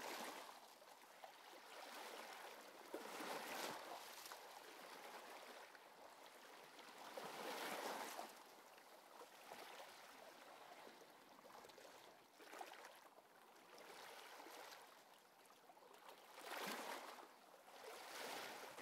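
Faint sea waves washing in, a soft rushing that swells and fades about every four seconds.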